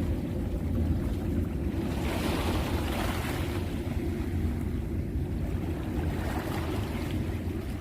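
Sea waves washing in, their hiss swelling and fading a couple of times, under a steady low rumble of wind on the microphone.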